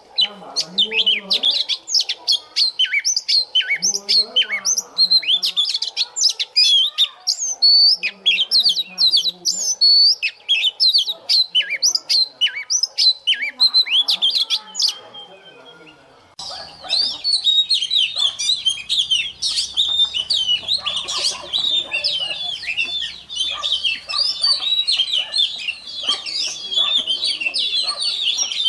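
White-rumped shama singing: loud, varied whistled phrases made of rapid notes sweeping up and down. A little over halfway through the song breaks off, then a denser, unbroken run of twittering follows.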